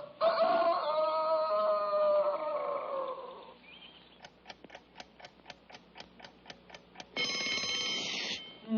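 A held note falls away and fades. Then a clock ticks about four times a second, and a cartoon alarm-clock bell rings loudly for about a second near the end: the wake-up alarm going off.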